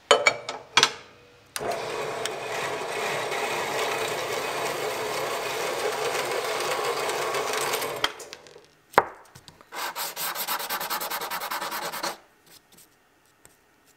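A few sharp knocks, then a saw blade cutting steadily through a brass block held in a vise for about six seconds. Near the end, the small brass block is rubbed back and forth on sandpaper in a quick run of scraping strokes.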